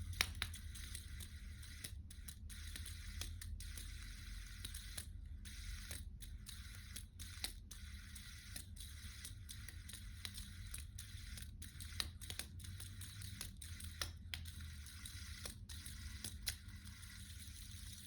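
Fidget spinner spinning: a faint, steady hiss from its bearing, with scattered irregular clicks over a low rumble.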